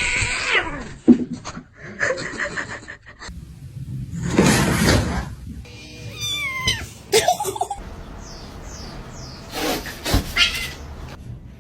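Domestic cats meowing in several short separate bursts.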